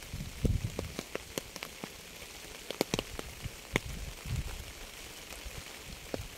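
Rain falling, with a steady hiss and individual drops ticking sharply and irregularly on a hard surface. A few short low thumps come in among them, the loudest about half a second in.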